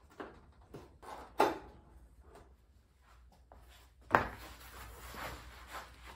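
Handling noises as a car's rear engine lid is lifted off and a foam pad is laid on the body: light knocks and rustles, with two sharper knocks about a second and a half in and about four seconds in.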